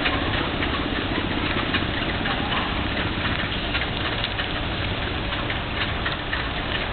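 Steady rush and splash of fountain water jets falling onto wet paving, with scattered small splashes.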